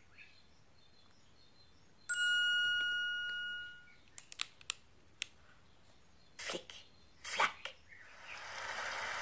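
A single bright chime from the read-along audiobook app on a phone, the cue to turn the page, dying away over about a second and a half. Then paper rustles and light knocks as the board-book page is turned, and near the end a steady hiss of rain and wind sound effect begins.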